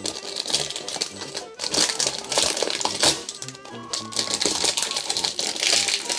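Rustling, crinkling and quick clicks of a Panini Court Kings basketball card pack being opened and its cards handled and shuffled, over background music.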